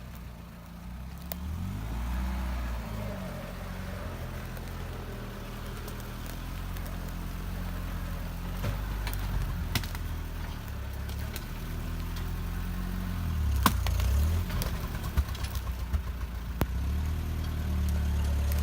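UAZ off-roader's engine running and revved up several times, rising in pitch about two seconds in and again later on, with a few sharp knocks.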